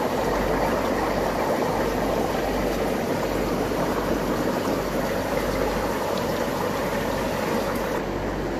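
Steady rushing and bubbling of aquarium filtration and air pumps, over a low steady hum.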